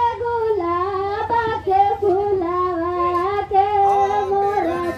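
A high-pitched voice, a woman's or a child's, singing a song in long held notes that step up and down, with no instruments.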